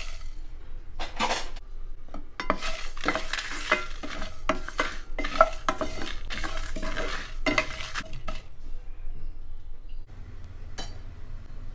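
Wooden spatula stirring and scraping whole spices (cumin and coriander seeds, dried red chillies) being roasted in a nonstick kadai: a quick run of short scraping strokes for several seconds, which then eases off.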